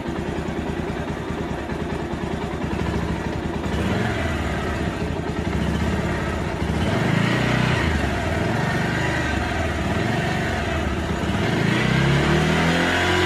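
Bajaj Pulsar 150's single-cylinder four-stroke engine running just after start-up: a steady idle, then revved up and down several times from about halfway, rising again near the end.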